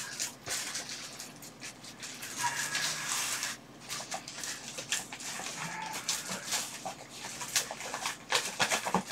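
Layers of packing tape and plastic wrapping on a cardboard box being cut and picked at with a pocket knife: irregular crinkling, scratching and tearing with scattered sharp clicks.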